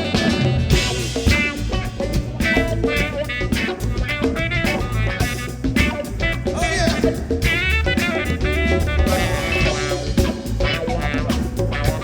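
Live rap-rock band playing an instrumental passage: drum kit and bass driving a steady beat, with guitar lines over it.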